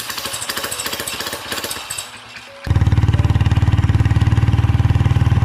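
A fast rhythmic clatter, then about two and a half seconds in an abrupt switch to a motorcycle engine running steadily on the ride, a loud, even low note.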